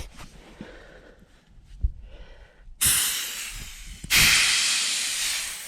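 High-pressure air hissing out of a PCP hand pump's hose as its bleed valve is opened, releasing the pressure left in the hose before it is disconnected from the air rifle. It comes in two bursts, about three and four seconds in, each starting suddenly and fading, the second louder.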